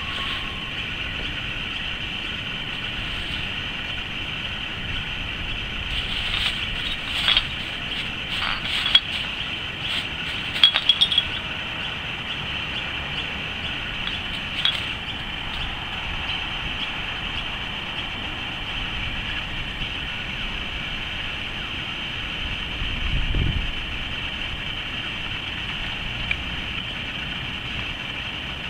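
Australian brushturkey foraging in garbage, its beak and feet working through plastic bags and bottles: crinkling and sharp clicks come in clusters between about six and fifteen seconds in. A steady high drone runs beneath, and a brief low rumble swells about 23 seconds in.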